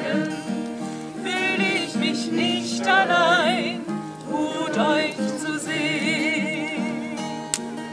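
A group of people singing a German song together, voices wavering on held notes over a steady instrumental accompaniment.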